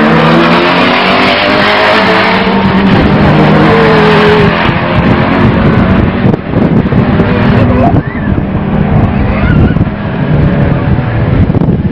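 Drag cars at full throttle down the strip, led by a 1990 Mitsubishi Eclipse pulling away from the camera. The steady engine note gives way to a rougher rumble about halfway through as the cars get farther off.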